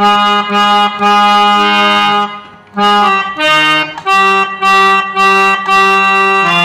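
Harmonium reeds playing a slow single-line melody in raag Shivranjani. Each note is held for about half a second before stepping to the next, with a brief break about two and a half seconds in before the notes go on.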